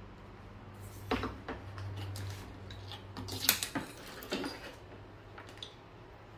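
Light metallic clinks and knocks of a jumper-cable clamp and wire being handled and fitted together by hand, a few sharp ones about a second in and the loudest about three and a half seconds in.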